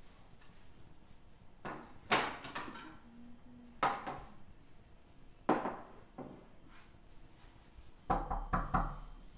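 Ceramic plates set down on a wooden table, a few separate clatters. Near the end comes a quick run of four or five knocks on a door.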